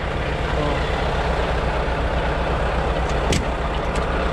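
Semi truck's diesel engine running with a steady low rumble, and a single sharp click about three seconds in.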